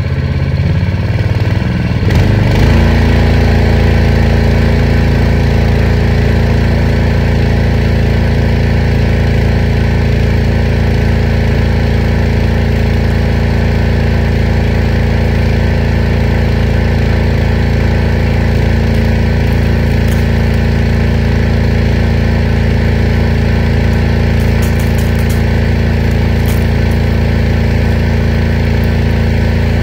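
Harbor Freight water pump's small engine running steadily while it pumps water out to the spray hose. Its speed and loudness rise about two seconds in, then hold.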